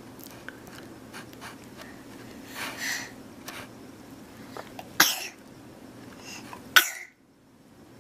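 A baby sneezing twice, two short sudden bursts about two seconds apart; the second cuts off suddenly.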